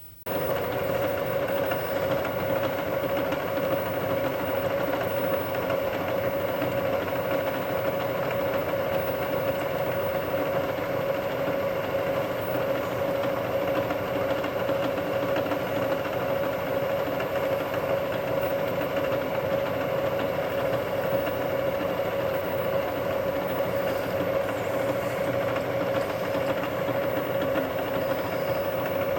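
Milling machine switched on just at the start and running steadily, its spindle motor and drive giving a constant whine over an even mechanical hum, with no change in load.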